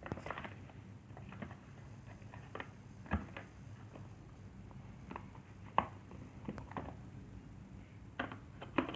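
Scattered light knocks, clicks and rustles of an iPhone box and its accessories being handled and packed back in, the sharpest knock about three seconds in and a quick cluster near the end.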